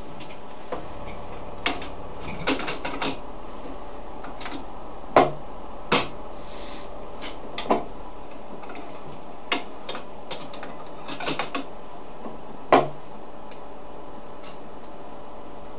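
Leica CV5000 automated coverslipper running: a steady machine hum with irregular clicks and clacks from its moving mechanisms, some coming in quick clusters.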